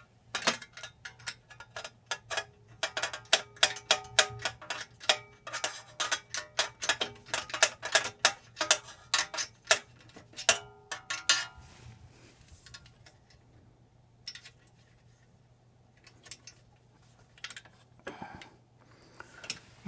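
Socket ratchet clicking in quick, uneven strokes while running down the exhaust header flange nuts, with a faint metallic ring. The clicking stops about halfway through, leaving only a few faint knocks near the end.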